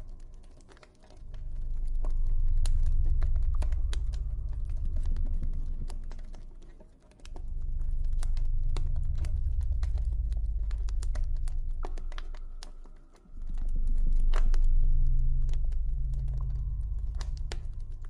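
Campfire crackling, with many scattered sharp pops and snaps, over a low rumble that swells and fades about every six seconds. A faint high tone is held in the background.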